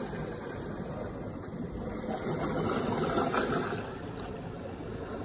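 Sea washing against a rocky shore: a steady rushing noise that swells from about two seconds in and eases after about four seconds.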